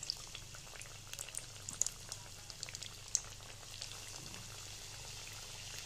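Dough rounds deep-frying in medium-hot oil: a faint, steady bubbling with scattered small crackles and pops.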